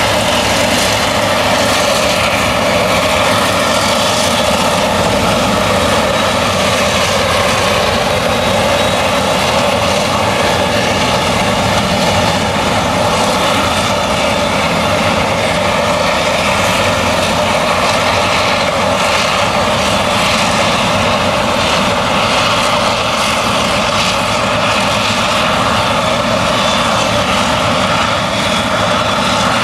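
Claas Jaguar 970 forage harvester with its MAN V8 engine running steadily under load while chopping maize, a continuous drone of engine, cutting drum and crop blower.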